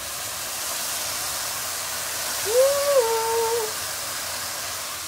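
Liquid aminos sizzling loudly and steadily on sautéing mushrooms in a hot pan. About halfway through, a short hummed note from a voice.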